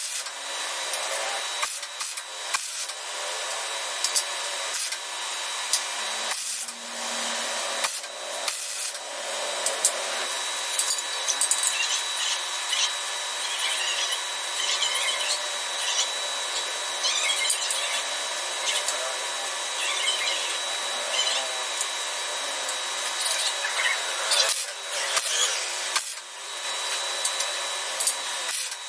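Power tool working on metal, running in long stretches with several brief stops.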